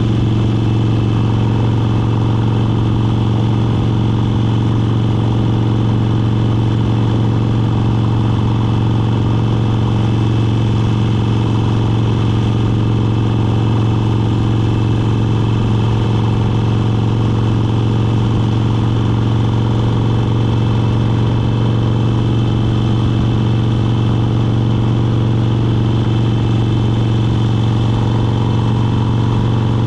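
Motorcycle engine running steadily at cruising speed, a constant low hum that holds one pitch throughout.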